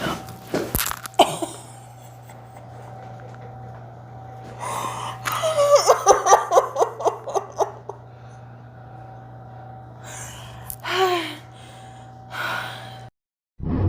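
A few sharp cracks in the first second or so, as joints are adjusted by a chiropractor, followed by a patient's loud vocal reaction: a drawn-out gasp that breaks into a rapid run of short breathy pulses, and later a short rising 'oh'. A steady low hum runs underneath until the audio cuts off just before the end.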